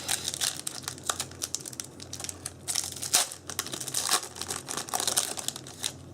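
Foil Yu-Gi-Oh booster-pack wrappers crinkling and tearing as packs are opened, in many quick rustles over a steady low hum.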